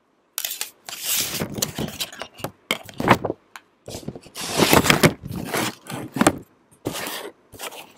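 Stiff panels of a monitor organizer kit, hard cardboard printed to look like wood, scraping and knocking against each other as they are handled and sorted. The sound comes as a run of short scrapes and clacks.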